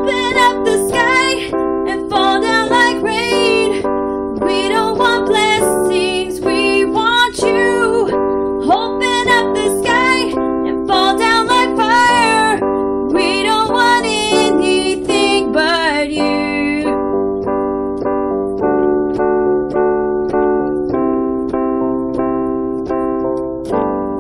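A woman singing over sustained electric keyboard chords. The voice stops about two-thirds of the way through and the keyboard holds chords alone, fading near the end.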